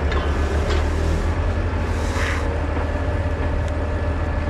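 Tractor diesel engine running steadily with a low, even throb, with a few faint clicks early and a brief hiss about two seconds in.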